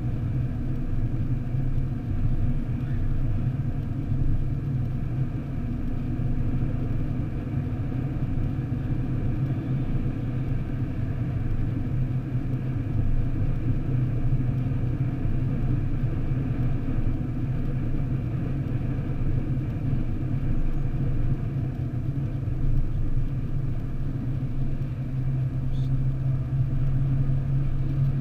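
Steady low drone of a car cruising at motorway speed, heard from inside the cabin: engine and tyre noise with no change in pace.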